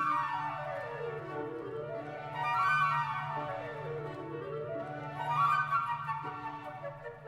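Background instrumental music: quick melodic runs sweep down and back up twice over a steady held low note.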